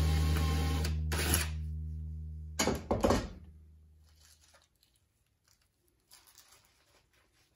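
Acoustic guitar music: a chord rings and fades away over the first few seconds, broken by short scratchy strokes about one second and three seconds in, then near silence.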